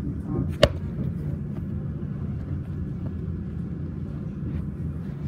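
Steady low rumble inside an HCMT suburban electric train carriage, with one sharp knock about half a second in.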